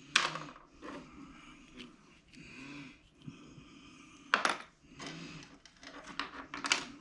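Small plastic toy pieces being handled and set down on a hard surface: three sharp clicks, near the start, about four and a half seconds in and near the end, with lighter taps and soft handling noise between.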